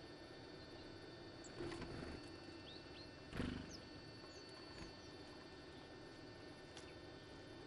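Tits calling at a fat-ball feeder: short, thin, high chirps scattered through. There is a brief rustle about two seconds in and a louder scuffling thump about halfway through, the loudest sound, as birds flutter and land at the feeder.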